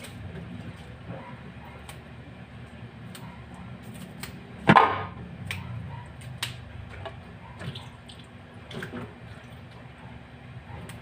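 Water spinach (kangkong) being picked over in a sink of soaking water: scattered small snaps and splashes of stems and wet leaves, with one louder splash about five seconds in, over a low steady hum.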